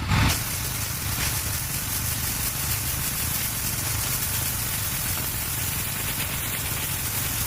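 Pressure washer running steadily: the low hum of its engine under the even hiss of the water spray, with a brief louder burst right at the start.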